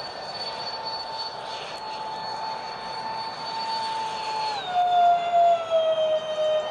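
Electric ducted-fan units of a Freewing Su-35 model jet whining steadily in flight. About four and a half seconds in the pitch drops quickly, then keeps sagging slowly and lifts slightly near the end.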